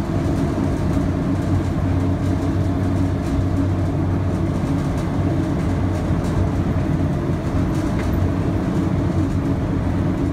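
Inside the cab of a 1962 GMC 4x4 panel truck under way: a steady engine drone with road noise.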